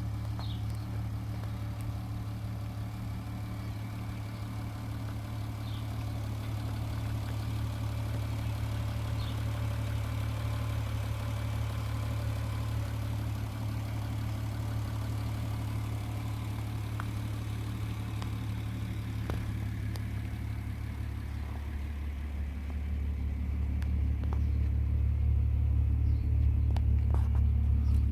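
Volkswagen 2.8-litre 24-valve VR6 six-cylinder engine (BDE) in a Passat 35i idling with a steady low exhaust drone, growing louder about three-quarters of the way through.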